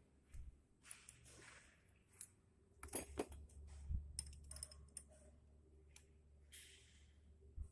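Faint, irregular clicks and taps of a combination wrench and screwdriver on the rocker-arm adjusting screws of a Toyota 5K engine, as the valve clearances are set.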